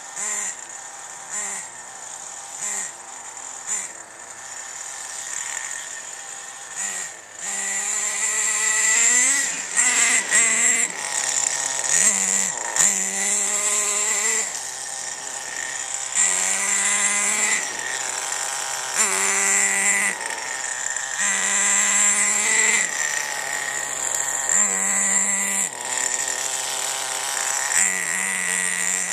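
A radio-controlled car's motor revving in repeated bursts as the car drives. There are short throttle blips for the first several seconds, then longer runs whose pitch climbs with each acceleration.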